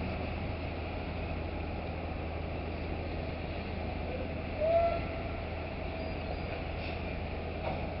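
Steady low machinery hum with a faint steady whine from the dockside crane working its clamshell grab down into the ship's hold, with one short squeal about halfway through.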